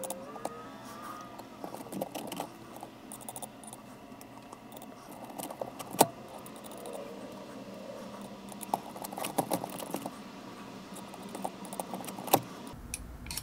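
Light clicks and taps of fingers and a small tool handling the plastic and metal drivetrain parts of a Traxxas TRX4 crawler: irregular small ticks, with a sharper click about six seconds in and another near the end.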